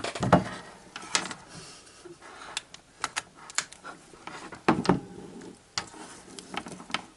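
Irregular clicks and knocks of small hard objects being handled, a dozen or so spread unevenly, some sharp and a few duller.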